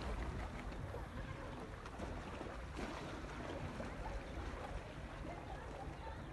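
Seawater lapping and sloshing at close range, with steady wind rumble on the microphone.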